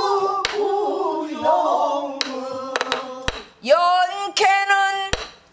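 Pansori singing: voices holding and bending long notes of a sung line, punctuated by about five sharp stick strokes on a buk barrel drum.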